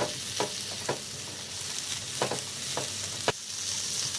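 Diced capsicum sizzling as it sautés in ghee and butter in a pan while being stirred, with a spoon clicking and scraping against the pan several times.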